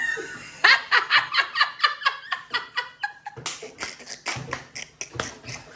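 A person laughing in quick repeated bursts, two long runs of laughter with a short break between them.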